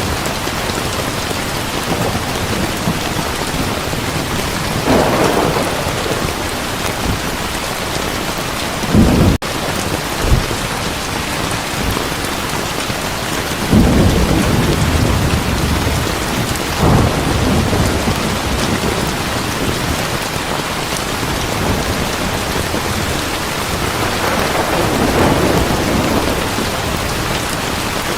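Heavy, steady rain with thunder rumbling low several times, strongest about a third and halfway through.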